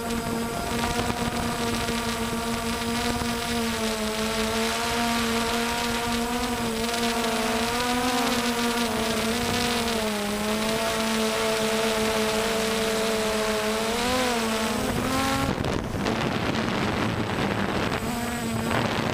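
DJI Phantom quadcopter's motors and propellers whining steadily close to the microphone, the pitch wavering and rising briefly with throttle changes. About fifteen seconds in the whine breaks up into a rushing wind noise.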